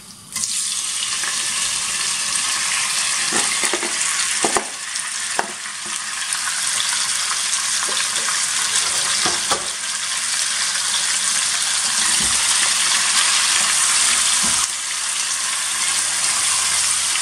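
Cubes of beef sizzling in hot sunflower oil in a casserole pot as they are seared. The sizzle starts abruptly as the meat goes in, about half a second in, and runs on loud and steady, with a few knocks of a spatula scraping the board and stirring the meat.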